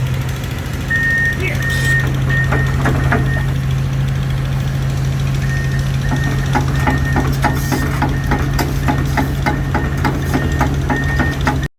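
Komatsu PC400 excavator's diesel engine idling steadily, with a high tone coming and going in short dashes and a run of sharp clicks over the second half. The sound cuts off abruptly near the end.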